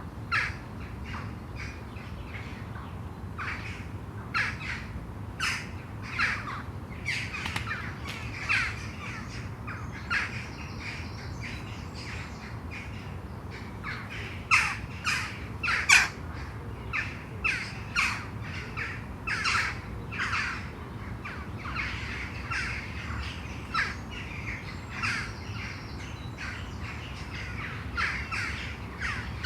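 Birds calling: a stream of short calls, one or two a second and some overlapping, as from several birds, over a steady low hum.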